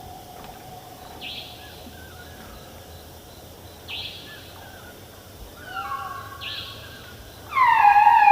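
Elephant trumpeting: a loud, pitched call that comes in suddenly near the end and slides down in pitch. Before it there are only faint chirps and short hissy bursts every couple of seconds.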